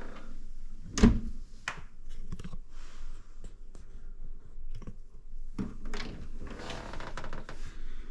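Handling noises from a Miele dishwasher's rinse-aid dispenser being shut after refilling: one sharp plastic thunk about a second in, then a few lighter clicks and some rustling.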